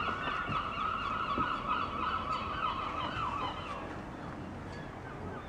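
A flock of birds calling together, a dense mass of overlapping calls that fades out about four seconds in.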